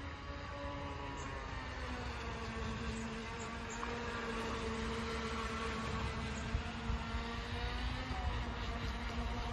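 Electric motor of a HobbyKing Aquaholic V2 RC speedboat whining at a steady pitch as the boat runs at speed across the water.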